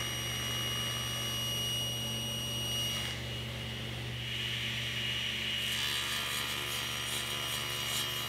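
Table saw running with its blade cutting into a board edge-on, a stopped cut that forms a notch in the end piece. A steady motor hum and whine run throughout, and the cutting turns hissier a little past halfway.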